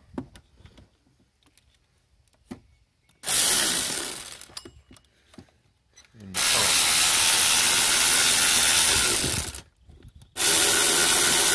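A 12-volt cordless electric ratchet running in three bursts on the power steering pump's mounting bolts, unfastening them: a short run about three seconds in, a longer run of about three seconds, then another starting near the end.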